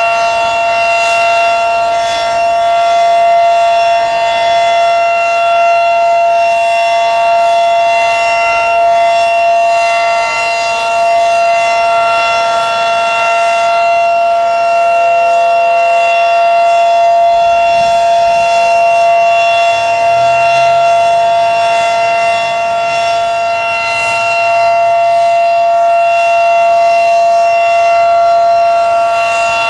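Federal Signal Model 5 outdoor warning siren sounding a steady alert tone at full speed. It is loud and unwavering in pitch, with only slight swells and dips in loudness.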